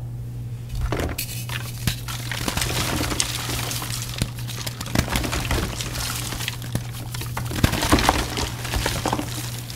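Blocks of reformed gym chalk (chalk pasted with water and dried) crunching and crumbling as they are crushed: a dense stream of small crackles and snaps, over a steady low hum.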